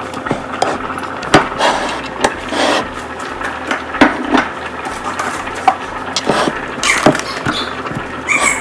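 Irregular knocks and clanks of kitchen utensils and a metal stockpot being handled at the stove, over a steady hiss.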